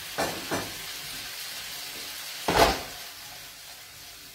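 Cherry tomatoes and herbs sizzling in a frying pan on a gas hob, with a few light knocks near the start and one louder knock about halfway through.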